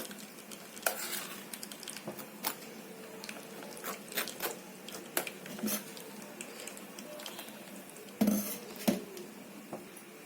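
A spoon stirring and pressing blended lemon pulp in a sieve to strain the juice, with scattered clicks and scrapes of the utensil against the sieve and bowl and a louder clatter about eight seconds in.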